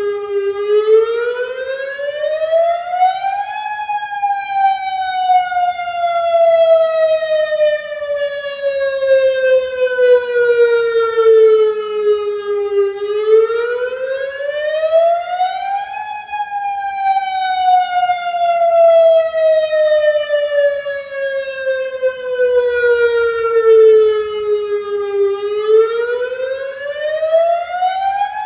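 Federal Signal DSA electronic outdoor warning siren sounding its wail tone for the monthly test. The pitch rises over about three seconds and sinks slowly over about nine, twice over, and starts a third rise near the end.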